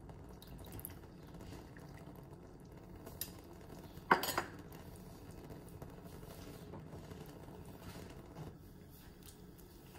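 Metal spoon scraping a small glass bowl, then one sharp clink with a short ring about four seconds in as the spoon and bowl are set down.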